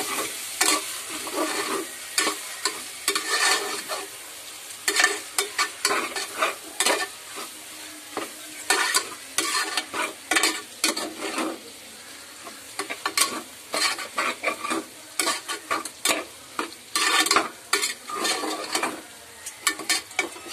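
A spoon stirring ground tomato and fried onions in a metal pot, scraping and knocking against the pot in quick, irregular strokes, over a light sizzle of the masala frying.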